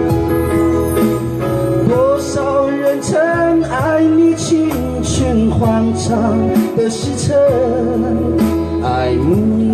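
Singing over backing music, the voice sliding between notes and wavering with vibrato over steady accompaniment chords.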